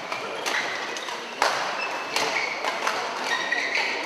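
Badminton-hall sounds between rallies: short high shoe squeaks on the court floor and several sharp knocks, the loudest about a second and a half in.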